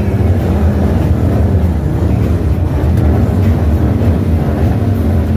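Motorcycle engine running steadily, a loud low rumble.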